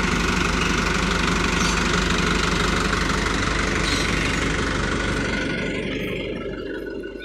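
Hino Dutro 300 truck's diesel engine idling steadily, its sound fading away over the last two seconds.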